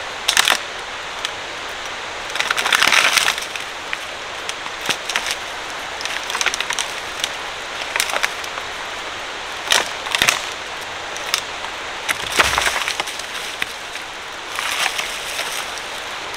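Dead wood being broken down and hauled: sharp cracks and snaps of dry wood, crunching and rustling in dry leaf litter, and a dull thump about twelve seconds in as the log hits the ground. A steady hiss runs underneath.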